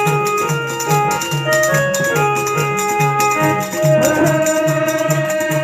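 Music on an electronic keyboard with an organ sound, playing a melody over a steady beat of about two pulses a second with rattling percussion; about three and a half seconds in, a wavering, sliding held tone comes in.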